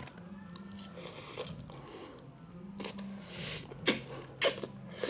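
Mouth sounds of someone eating Indomie goreng instant fried noodles close to the microphone: quiet chewing, then two sharp, breathy slurps about four seconds in.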